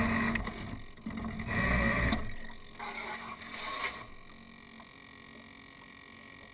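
A twin-motor electric RC boat (two Graupner Speed 600 Eco motors) running in two throttle bursts with water rushing and splashing past the hull. The motor hum cuts off a little over two seconds in, leaving a few splashes and then only faint water sound as the boat coasts.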